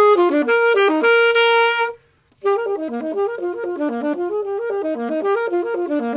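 Saxophone played solo: a quick run of notes, a note held for about a second, a short breath pause near the middle, then another stream of fast notes.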